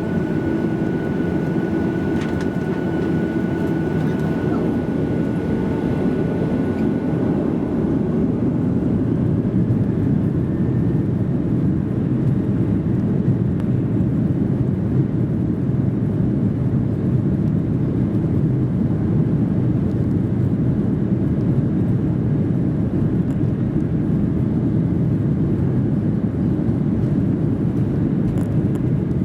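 Boeing 737-800's CFM56-7B jet engines at takeoff thrust, heard inside the cabin: a steady loud roar and rumble of the takeoff run and climb. A high engine whine at the start fades away over the first several seconds.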